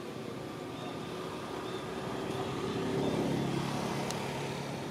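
A motor vehicle's engine passing by, its steady hum growing louder to a peak about three seconds in and then fading.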